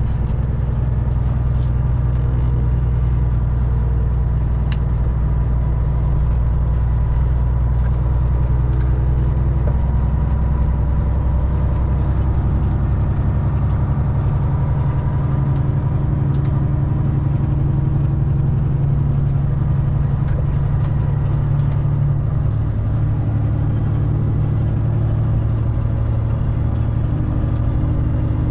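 Semi truck's diesel engine running steadily while driving, with its low drone shifting pitch slightly a couple of times.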